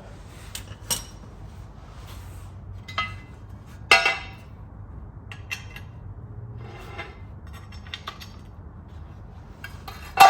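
Irregular metallic clinks and clanks of a jack and tools being handled and set in place under a car, with a sharp knock about four seconds in and the loudest clank right at the end.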